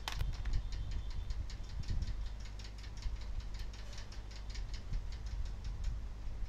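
A sharp click, then a fast, fairly regular run of light ticking clicks, about five or six a second, over a steady low hum.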